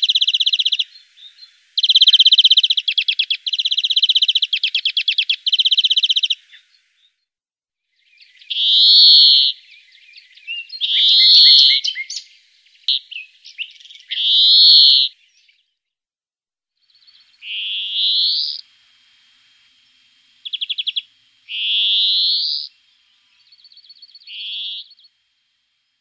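A songbird singing: rapid trills in bursts of about a second for the first six seconds, then three buzzy notes, then drawn-out rising wheezes and short trills, with pauses between phrases.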